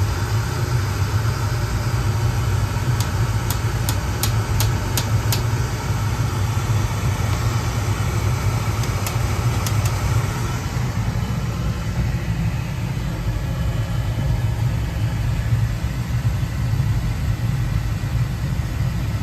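Oil burner firing in a Burnham oil boiler: a steady low rumble of the flame and burner blower, with its air cut back tight. A run of light clicks comes a few seconds in and again around ten seconds.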